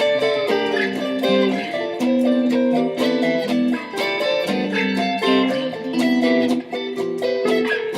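Guitar music: plucked notes played in a quick, continuous run, several notes a second.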